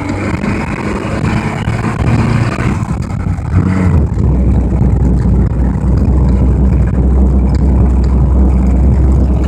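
Off-road vehicle engine running steadily. About four seconds in it drops into a deeper, louder drone.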